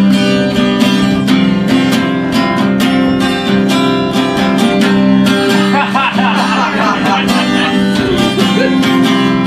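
Live song accompaniment on a strummed guitar, keeping a steady rhythm. A voice comes in over it about six seconds in for a couple of seconds.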